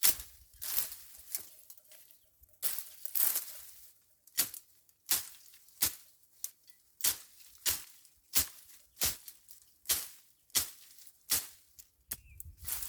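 Steady, evenly paced strokes of a hand tool chopping through weeds and grass, about three strokes every two seconds, each a short swish.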